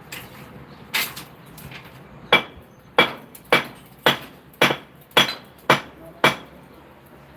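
Hammer striking steel, one blow and then a steady run of eight blows about two a second, each with a short metallic ring.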